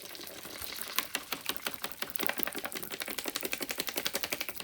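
A supplement drink being mixed in its container: a rapid, even rattling of about a dozen clicks a second, kept up throughout.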